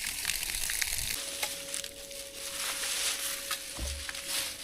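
Water running through a garden hose and tap, a steady hiss with scattered small clicks; a faint steady whine comes in about a second in.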